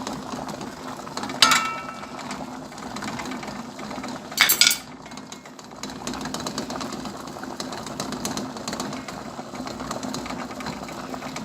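A bain-marie of lavender in oil at the boil on the stove: water bubbling with a fast, fine rattle over a faint steady hum. There are two brief louder clinks, about 1.5 and 4.5 seconds in.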